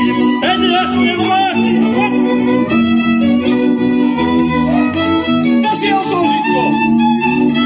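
Slovak folk string band playing a tune. Fiddles carry a wavering vibrato melody over steady held chords and a double bass line.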